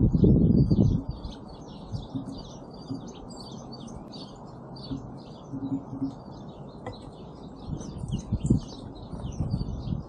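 Small songbirds at a feeder chirping, many quick high chirps overlapping without pause. A loud low rushing noise fills the first second, with a couple of shorter ones near the end.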